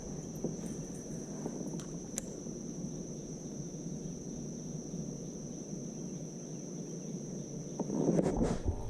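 Night insects singing in one steady high-pitched drone, over a low steady background noise. Near the end there is a short, louder noise.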